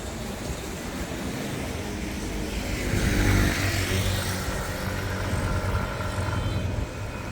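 A motor vehicle passing close by, growing to its loudest about three seconds in and then fading away.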